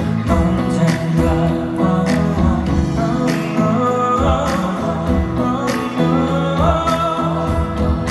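Live band music from a slow ballad: guitar and regular drum hits under sustained chords. A held melody note slides upward about halfway through and again near the end.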